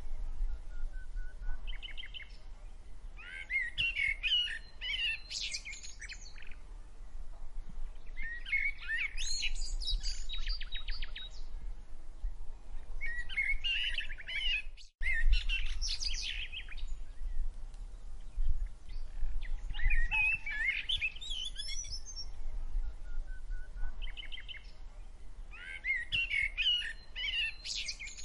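Songbirds singing: bursts of quick chirping song that come back every five seconds or so, over a steady low rumble. The sound drops out briefly about halfway through.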